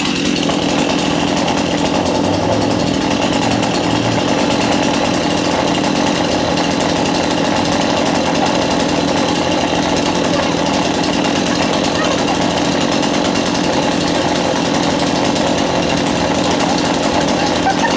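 Two-stroke chainsaw running steadily at high throttle, cutting through the wood of a dead orange tree.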